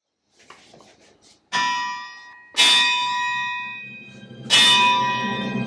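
Sledgehammer blows on a steel blacksmith's anvil: three strikes, each leaving a bell-like ring that fades over a second or two. A few faint clinks come before the first blow.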